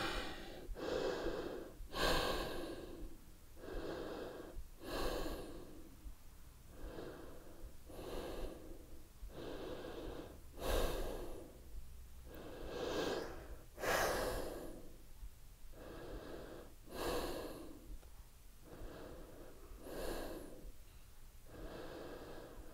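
A woman breathing deeply and audibly through a held yoga pose: a steady run of separate airy inhales and exhales, about one every second or two.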